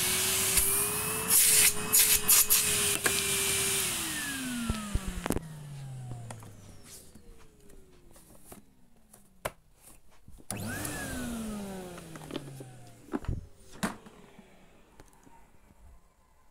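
Numatic NRV 200 vacuum cleaner motor running, then switched off about four seconds in and winding down with a falling whine. About ten seconds in it is switched on for a moment and spins down again. A few sharp knocks come between.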